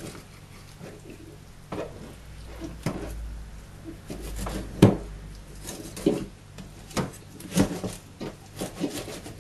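A kitchen knife slices a fillet off a mejina (largescale blackfish) on a plastic cutting board. There are scattered knocks and scrapes from the blade and from the fish being handled, the loudest about five seconds in.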